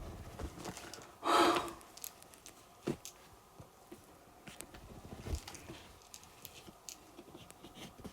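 Soft chewing and small wet mouth clicks of someone eating cake, with a brief hummed vocal sound about a second and a half in.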